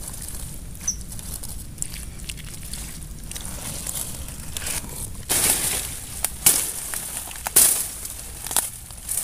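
Rustling and crackling of someone moving through dry brush and leaves, with sharp twig snaps, beginning about five seconds in. Before that there is only a faint outdoor background with a few small clicks.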